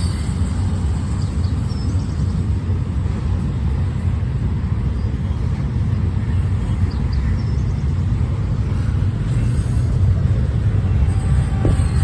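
Freight cars of a passing freight train rolling by, a steady low rumble that grows slightly louder near the end.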